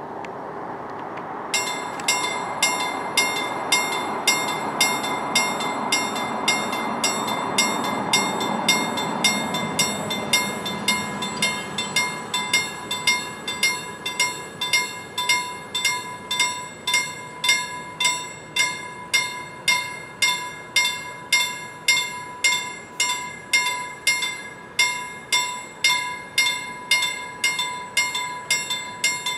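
Railway level crossing warning bell starting about a second and a half in, then ringing on at an even rate of just under two strikes a second as the crossing activates for an approaching train. Early on a car passes, its road noise swelling and then falling away.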